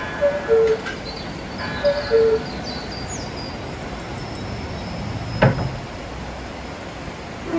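Giant cuckoo clock calling "cu-ckoo": a falling two-note call, twice, about a second and a half apart. A single sharp knock with a low thud comes about five and a half seconds in.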